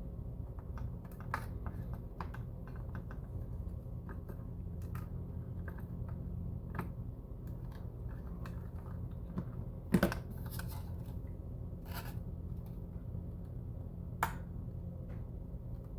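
Scattered small plastic clicks and taps as an antenna is worked out of and back into its mount on a FrSky Taranis X9D+ radio transmitter, with a sharper click about ten seconds in and another about fourteen seconds in, over a low steady hum.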